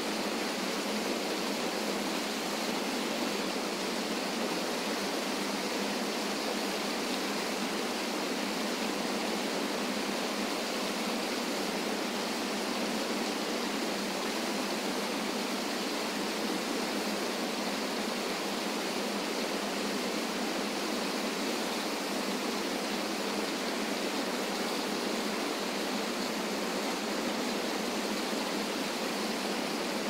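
Small river waterfall cascading over rocks into a pool: a steady, unbroken rush of water with no deep rumble.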